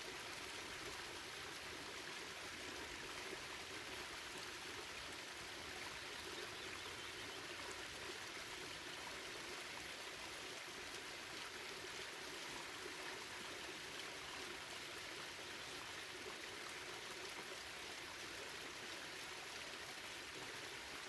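Steady rush of a waterfall and the stream below it, water falling and running over rocks without a break.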